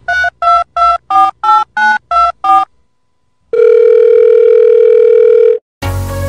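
Telephone keypad dialing tones: about nine quick beeps, each two pitches at once, roughly three a second, played as a sound effect to match a finger pressing a puppy's paw pads like buttons. After a short pause comes one long steady beep lasting about two seconds, and music starts near the end.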